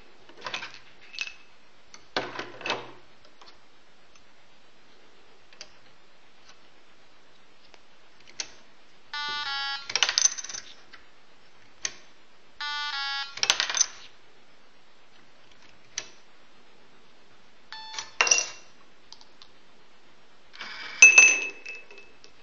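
Plastic toy coins clattering through a Lego Mindstorms EV3 candy machine as they are inserted and sorted, with short electronic beeps from the EV3 brick three times, each followed by a rattle of the mechanism. Near the end there is the loudest burst of clatter with a ringing clink as Lego balls drop into the bowl for candy.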